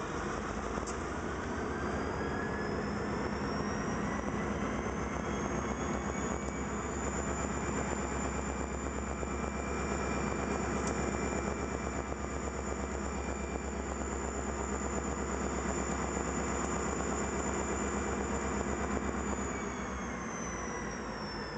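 Diesel-electric locomotive engine revving up from idle with a rising whine, holding at high speed, then winding back down near the end, as in a throttle test of the standing engine.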